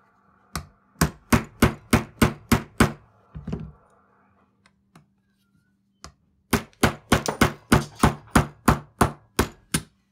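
A hammer tapping a pin punch to drive out the retaining pin that holds the firing pin in a Ruger 10/22 bolt. First comes a run of about eight sharp taps and a duller knock, then a pause of a couple of seconds, then a faster run of about a dozen taps.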